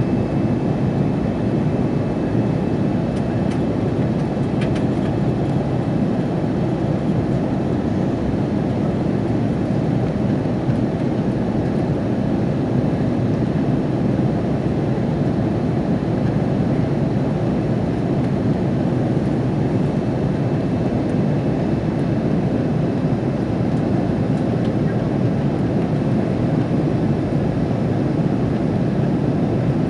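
Steady cabin noise inside an Airbus A330-300 in flight: an even, unbroken rush of engines and airflow, heard from a window seat in the rear cabin.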